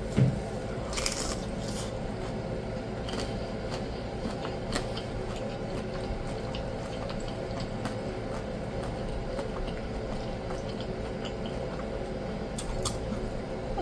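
Close-up eating sounds of a birria taco: wet squishing as it is bitten and chewed, and as it is dipped in consommé, with scattered sharp clicks over a faint steady hum.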